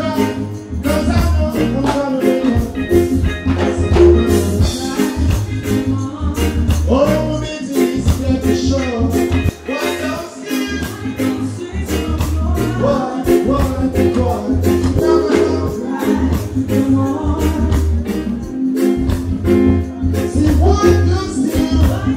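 Reggae played live by a band through a stage sound system: a deep repeating bass line, drums and percussion, with a man singing over it.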